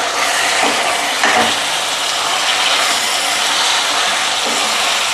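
Tomatoes and onions sizzling steadily in hot oil in a kadai, with a couple of short scrapes of stirring about half a second and a second in.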